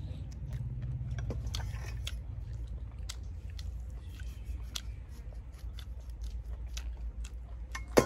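A person chewing balut (fertilised duck egg) close to the microphone, with many small scattered mouth clicks; one sharper, louder click comes near the end.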